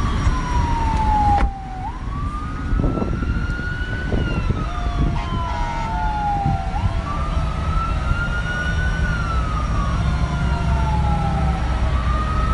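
An emergency vehicle's siren wailing, its pitch rising and falling slowly about every five seconds, over a steady low rumble.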